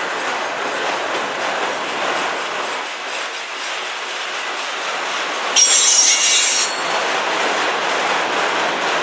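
Autorack cars of a freight train rolling past: a steady rolling noise of steel wheels on the rails. About five and a half seconds in, a loud high-pitched metal squeal from the wheels lasts about a second.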